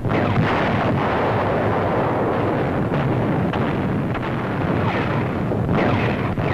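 Battle sound on an old newsreel soundtrack: artillery fire and explosions going off one after another over a continuous loud rumble.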